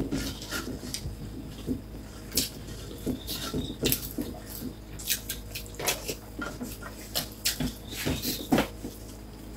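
Mukbang eating sounds: wet chewing and lip smacks with scattered short clicks, as rice and egg are eaten by hand.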